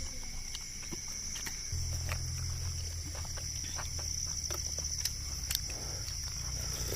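Insects shrilling steadily in the background, a continuous high-pitched drone with a fainter lower steady tone beneath it. A low rumble comes in about two seconds in, and small scattered clicks are heard.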